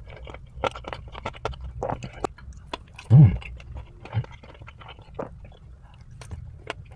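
Close-up mouth sounds of someone eating KFC food: chewing with many small wet clicks and crunches. A short, loud voiced sound, like a hum, comes about three seconds in.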